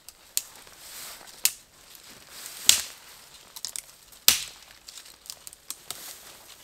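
Dead branches and twigs being snapped off trees by hand for kindling: a series of sharp cracks with twiggy rustling in between.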